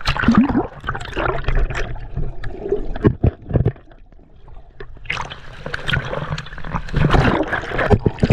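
Seawater splashing and gurgling in the surf, with a quieter lull about four seconds in.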